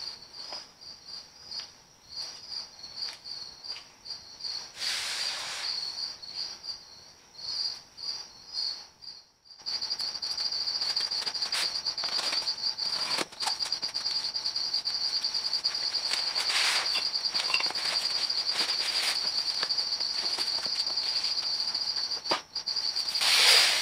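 An insect chirping in a high, thin trill: in quick pulses for the first several seconds, then unbroken from about ten seconds in. Now and then a cardboard box rustles and knocks as it is handled.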